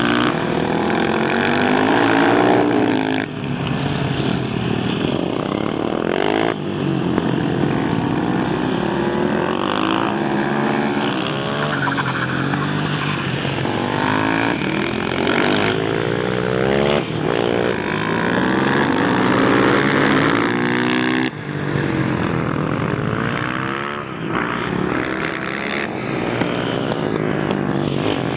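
Several supermoto motorcycle engines revving at once, their pitch repeatedly climbing under acceleration and dropping sharply as the throttle closes or the bike shifts gear.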